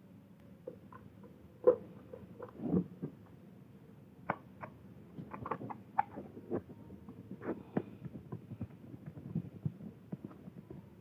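Irregular clicks, taps and knocks of a screwdriver and plastic parts being handled while working on a washing machine's water inlet valve, with a louder knock a little under two seconds in.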